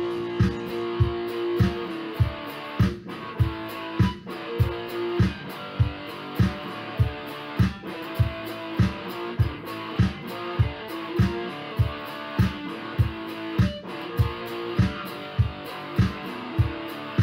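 Background music: guitar-led instrumental over a steady beat.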